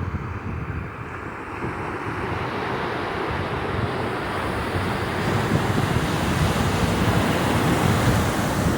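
Ocean surf washing in, a steady rush that swells over the first few seconds, with wind buffeting the microphone.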